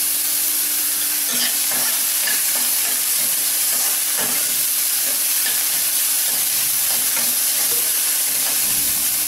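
Chopped vegetables sizzling in oil in a non-stick kadai, stirred and tossed with a slotted steel spatula that scrapes and taps the pan irregularly from about a second in. The vegetables are being sautéed.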